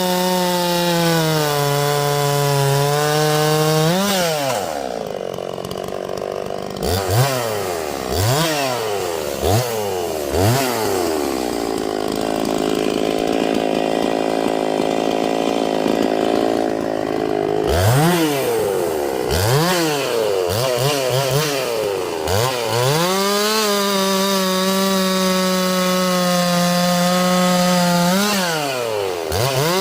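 Holzfforma G366 two-stroke chainsaw held at full throttle, its pitch sagging slightly under load, typical of cutting through wood. Several times the throttle is let off to a lower steady note and blipped in quick up-and-down revs, before it goes back to full throttle for another long steady run.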